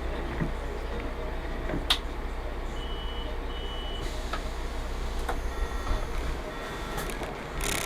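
City bus engine running steadily, heard from the driver's cab, with a few short electronic beeps and occasional clicks.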